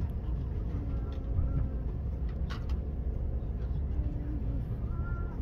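Steady low rumble of a moving passenger train, heard from inside the carriage, with a couple of short clicks about two and a half seconds in.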